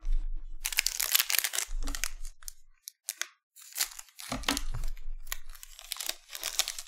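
Foil trading-card pack wrapper crinkling and tearing as it is cut open with scissors and pulled apart by hand, in crackly bursts with a short pause about halfway.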